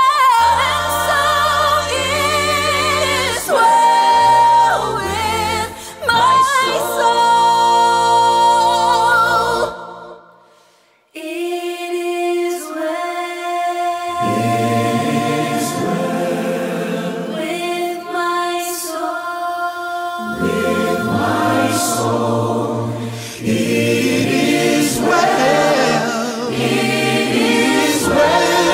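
Singing with a low accompaniment, which dies away about ten seconds in. After a short gap, a choir sings, at first unaccompanied, with more voices joining around fourteen seconds and fuller, deeper parts coming in near twenty seconds.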